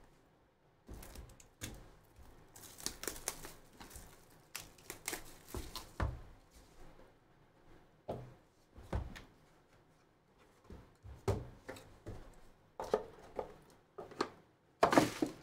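Shrink-wrap being torn and crinkled off a sealed trading-card box, then the box handled and opened, with scattered crackles, rustles and taps. The loudest crinkling comes near the end.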